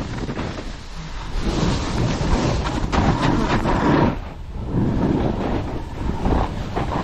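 Wind rushing over an action-camera microphone, together with the hiss and scrape of a board sliding and carving through snow at speed. The noise swells and eases with the turns and dips briefly just past halfway.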